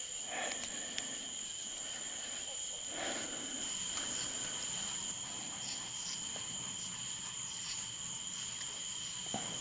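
A steady chorus of insects, two unbroken high-pitched tones, with a few faint clicks and rustles from handling bait and gear.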